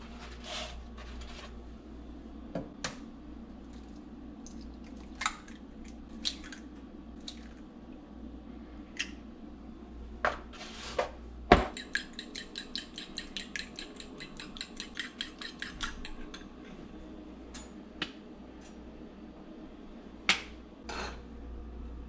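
Kitchen dishes and utensils being handled: scattered clinks and knocks, then a sharp knock about halfway through followed by about four seconds of fast, even clinking at roughly nine strokes a second.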